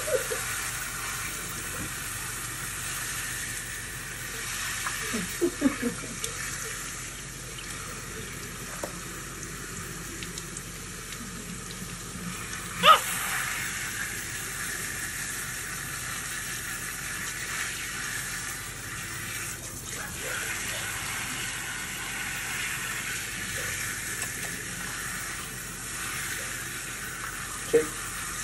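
Kitchen faucet spraying a steady stream of water into a sink, with a few brief louder sounds on top, the sharpest about halfway through.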